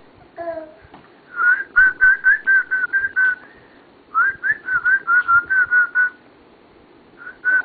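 A person whistling: quick runs of short, same-pitched notes at about four a second, in two runs, with a brief pair more near the end. Repeated like this, they are calling whistles.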